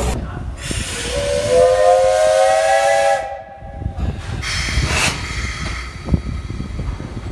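Whistle of JNR 8620-class steam locomotive No. 58654: one chord blast of about two seconds that rises slightly in pitch and cuts off sharply. A burst of steam hiss follows, then softer hissing.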